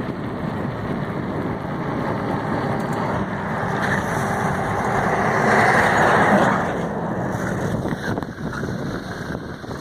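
A road vehicle passing close by, a rushing noise that builds to its loudest a little past halfway and then fades.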